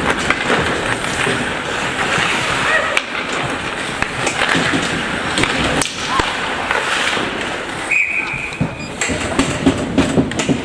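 Ice hockey game play: skates scraping on the ice and sticks and puck clacking, with sharp knocks and spectators' voices over a busy rink noise, and a short steady high tone about eight seconds in.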